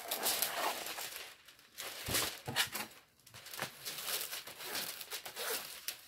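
Diamond-painting canvas sheet crinkling and rustling in irregular bursts as it is handled and smoothed flat to take out creases in the paper, with a sharper crackle about two seconds in.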